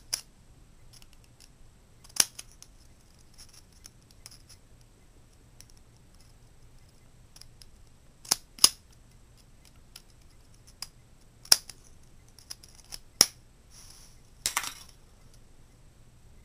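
Scissors snipping the thin aluminum wall of a soda can, cutting small triangular notches into its edge: about seven short, sharp snips spaced irregularly a second to several seconds apart.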